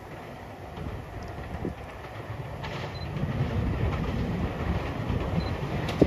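Meitetsu 5000 series electric train approaching on the track, its running rumble growing steadily louder, with a sharp wheel clack over a rail joint near the end.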